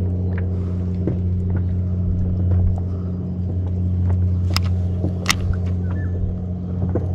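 A steady low machine hum, like an engine running at a constant speed, with a few sharp clicks, the loudest two a little past the middle.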